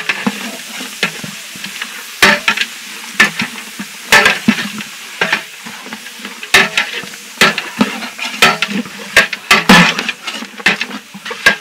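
Long metal ladle stirring chopped buffalo meat in a large aluminium pot, knocking and scraping against the pot's sides at irregular intervals, with the meat sizzling in the hot pot.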